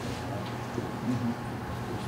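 Quiet room tone: a steady low hum with faint, indistinct voices in the room.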